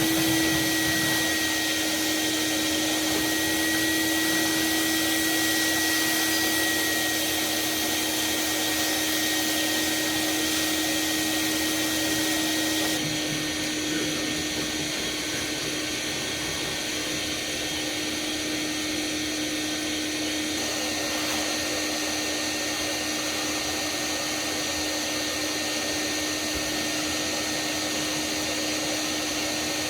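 Shop vacuum running steadily: a constant motor hum with a faint higher whine. Its sound shifts slightly about thirteen seconds in.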